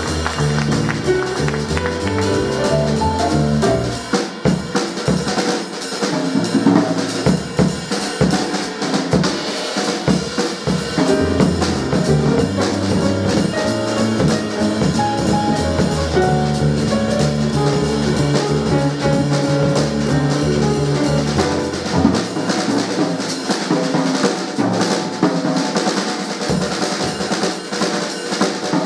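Live jazz piano trio playing: acoustic grand piano, upright double bass and drum kit played with sticks. The lowest bass notes thin out about three-quarters of the way through while the drums carry on.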